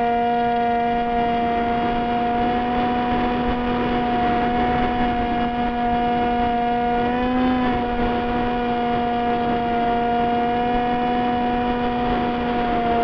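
Model airplane's motor and propeller heard from a camera on the plane, a steady whine that rises briefly in pitch about seven seconds in and then settles again, over the rush of wind on the microphone.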